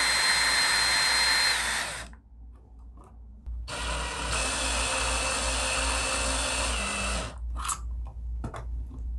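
Cordless drill/driver driving screws through a light fixture's mounting plate into a plastic ceiling box. A run of about two seconds, whose whine dips slightly just before it stops, is followed after a short pause by a longer run of nearly four seconds. A few small clicks come near the end.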